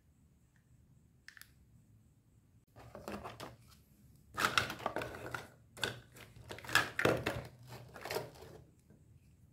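Hard plastic toy food pieces clattering and knocking together as hands rummage through them in a cardboard box, in several bursts from about three seconds in until near the end.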